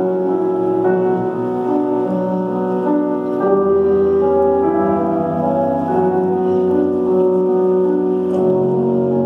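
Classical music with piano played over an ice rink's loudspeakers, held notes running on without a break: a figure skater's free skate program music during a practice run-through.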